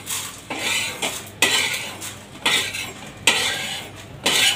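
Metal spatula scraping and stirring coriander seeds across a flat tava (griddle pan) as they dry-roast, in about six separate scrapes.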